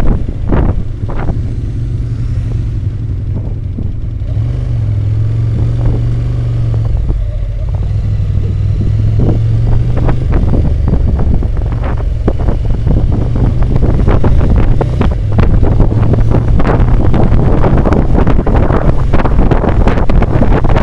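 Ducati motorcycle engine running at road speed, with heavy wind buffeting on the microphone; it grows louder through the first half.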